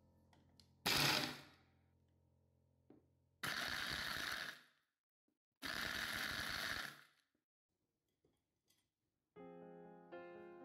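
Electric food chopper run in three short pulses, each about a second long, grinding Oreo biscuits, walnuts and brown sugar into crumbs. Soft background music plays underneath, fading out after the first pulse and coming back near the end.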